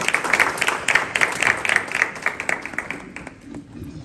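A small audience applauding in welcome, the clapping thinning out and fading away about three seconds in.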